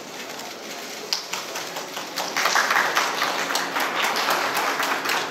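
Crowd in a station concourse applauding: a low hubbub at first, then clapping breaks out a little past two seconds in and keeps going.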